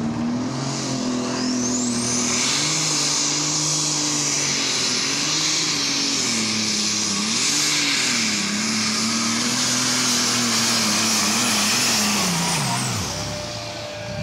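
Super stock pulling tractor's turbocharged diesel engine running hard, its engine note wavering up and down under a high turbo whistle. A rising whistle comes about a second in, and the revs fall away sharply near the end.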